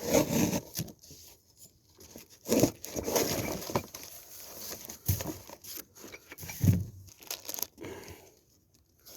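Cardboard box and packaging rustling, crinkling and tearing as climbing sticks are pulled out, with a few louder knocks and a low thump about two-thirds of the way in.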